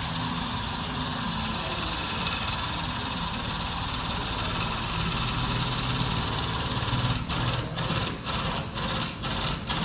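Hydraulic pulling equipment of a frame-straightening bench running steadily while a damaged front chassis rail is being pulled. About seven seconds in it turns to a pulsing, about two pulses a second.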